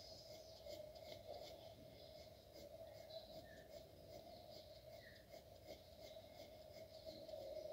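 Faint pencil lead scratching on paper in repeated short shading strokes.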